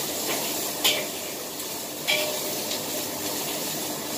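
Beef and egg sizzling in hot oil in a wok while a spatula stirs them. The spatula clacks sharply against the wok about a second in and again about two seconds in.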